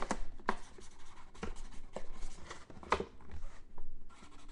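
Scattered light scrapes and taps of hands working at a desk, a few irregular small strikes.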